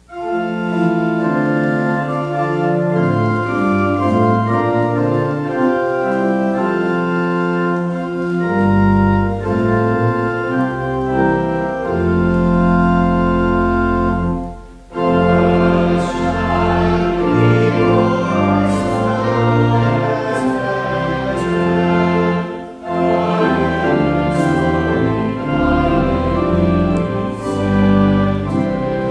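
Organ playing sustained chords, with deep pedal bass joining about eight seconds in. After a brief break about halfway through, a man and a woman sing a hymn with the organ.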